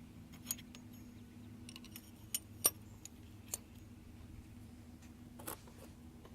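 Engine push rods clinking as they are slid into place: a handful of sharp metal clicks with a short ring, the loudest about two and a half seconds in, and a brief rattle near the end, over a steady low hum.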